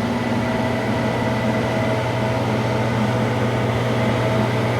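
Steady, unchanging drone of a running motor or fan, with a constant hum.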